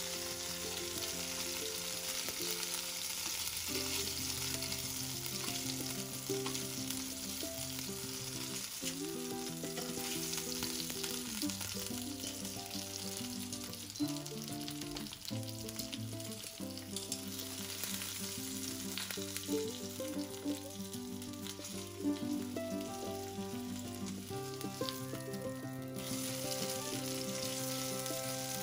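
Spiced salmon pieces sizzling in hot oil in a nonstick frying pan, with a few clicks of metal tongs against the pan as the pieces are turned. Soft background music with slowly changing chords runs underneath.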